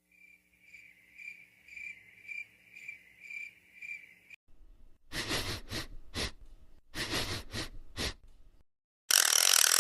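Cricket chirping, about two even chirps a second for roughly four seconds, the 'crickets' gag sound effect. It is followed by two clusters of louder, sharp, irregular bursts and a loud rushing noise near the end.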